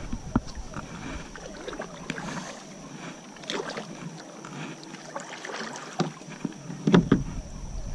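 A double-bladed kayak paddle dipping and splashing in the water, a few strokes at uneven intervals.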